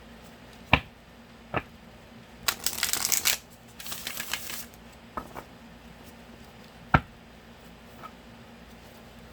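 Oracle card deck being shuffled by hand: a few sharp taps of the deck, a quick rattling riffle about two and a half seconds in, then a softer sliding rush of cards, and one more sharp tap about seven seconds in.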